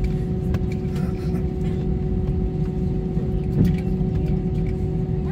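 Airbus A319 cabin noise while taxiing: the engines' steady hum over a low rumble from the wheels rolling on the taxiway, with one brief bump about three and a half seconds in.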